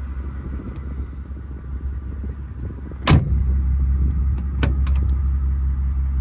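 Mercedes-AMG G65's rear swing-out door slammed shut about three seconds in, followed by a few sharp clicks of its handle and latch as it is opened again. A steady low rumble runs underneath.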